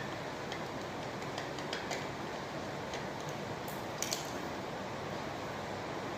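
Scattered light clicks and ticks, with two sharper ones about four seconds in, over a steady background hiss.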